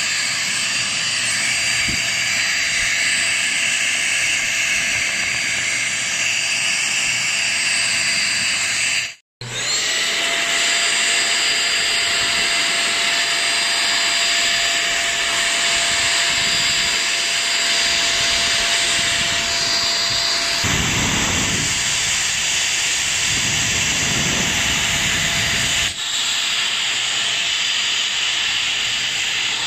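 Deerma DX700 handheld vacuum cleaner running steadily, a loud airy hiss with a thin whine in it, as its crevice nozzle is worked over carpet and along sofa cushions. The sound cuts out for a moment about nine seconds in. A lower rumble joins it for several seconds near the end.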